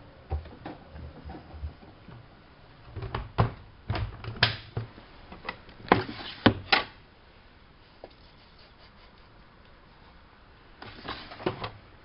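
Clicks and knocks from the Alaska WA8200 E washing machine being handled, in a cluster of sharp strokes about three to seven seconds in and a shorter cluster near the end.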